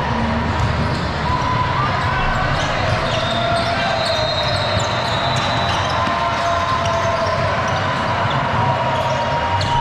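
Sound of a basketball game in play: a basketball bouncing on the court under a steady mix of players' and spectators' voices. Faint short ticks and drawn-out higher tones come and go through it.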